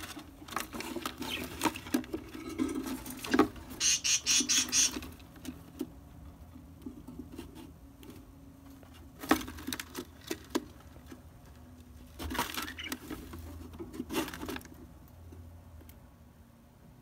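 Budgerigar hen and chicks in a wooden nest box: scratching and shuffling on the box floor with short clicks and chirps, and a quick string of high rasping pulses about four seconds in.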